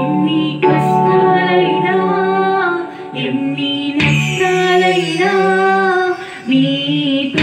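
A woman singing a worship song into a microphone, with held, gently wavering notes, over electronic keyboard accompaniment. There are brief pauses between phrases about three and six seconds in.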